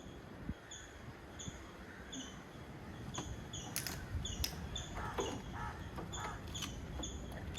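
A small bird's short, high chirp, repeated over and over about every two-thirds of a second. A few sharp clicks come about four to five seconds in.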